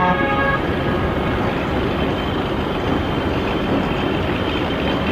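A horn toot ending about half a second in, then the steady noise of a heavy dump truck running.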